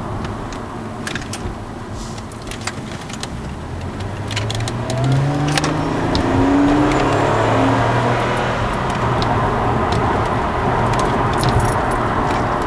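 Supercharged V6 of a TRD Aurion heard from inside the cabin under way: steady at first, then about four seconds in it pulls harder, its note rising, and holds at a louder steady pitch. Light clicks and jingles sound over it.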